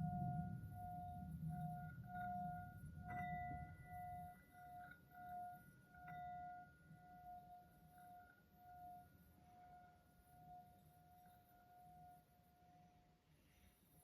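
Singing bowl ringing with a pulsing, wavering tone, struck again about three seconds in and once more about six seconds in, then slowly dying away. A low rumble sits under the first few seconds.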